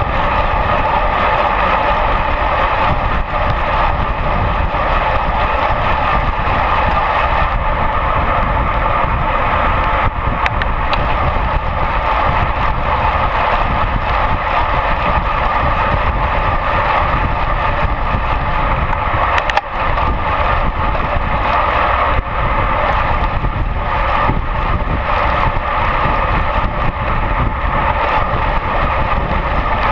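Steady rush of wind over a bike-mounted action camera at road-racing speed, with a low rumble from the road beneath. There is a single short knock about twenty seconds in.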